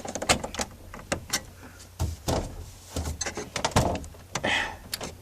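Irregular plastic clicks, knocks and scrapes as a replacement rear projection TV lamp unit is handled and pushed into its housing.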